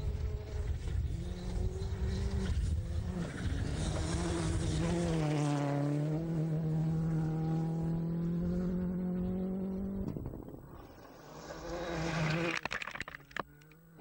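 Ford Fiesta R5 rally car's turbocharged four-cylinder engine running hard on a gravel stage; its pitch falls about five seconds in and then holds steady, and a run of sharp cracks comes near the end.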